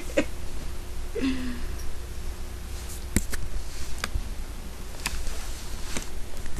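A handful of sharp, scattered taps and knocks, about five of them at uneven intervals, over a low steady rumble and a faint hum. There are a couple of brief vocal sounds near the start.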